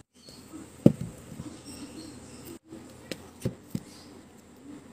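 K-pop album cases being handled and set upright on a shelf, with one sharp tap about a second in and a few lighter knocks near the end as the albums bump against each other.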